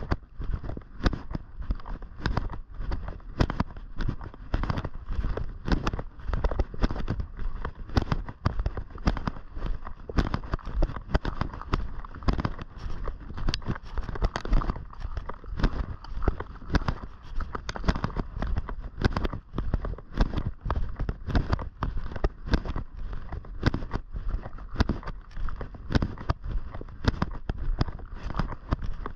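Footsteps crunching along a path, an unbroken run of sharp, irregular crunches and clicks.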